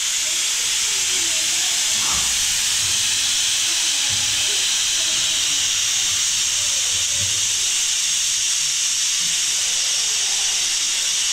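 Prestige Popular aluminium pressure cooker letting off steam: a loud, steady hiss of steam escaping from the lid, with no whistle.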